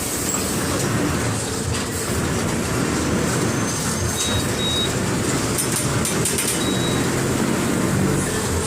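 Diesel engine of a Mercedes-Benz OF 1721 BlueTec 5 city bus running with a steady low rumble, with a few faint light ticks partway through.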